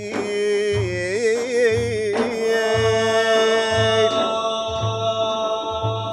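Male voices singing an Arabic devotional madih melody, with ornamented turns at first and then one long held note from about two seconds in. Large frame drums beat a slow, steady pulse of about one low stroke a second underneath.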